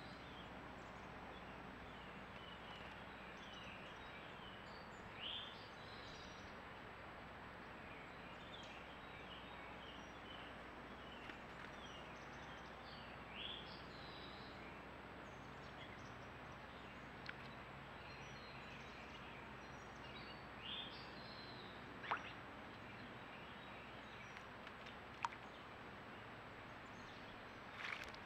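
Faint birds chirping, short calls every few seconds over a steady outdoor hiss, with two sharp clicks in the second half. Near the end, splashing starts as a robin bathes in a stone birdbath.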